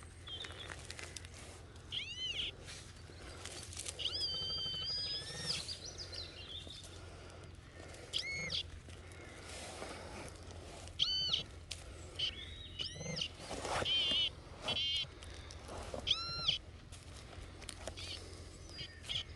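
A bird repeatedly giving short, arched whistled calls, each rising and then falling in pitch, over intermittent scraping and knocking of digging in soil.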